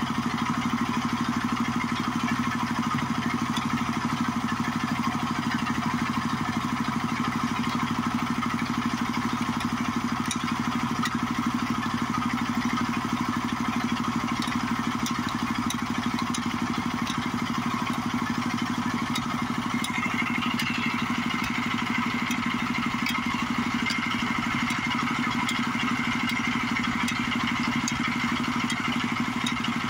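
Backhoe loader's diesel engine running steadily, with faint scattered ticks. A higher whine joins about two-thirds of the way through.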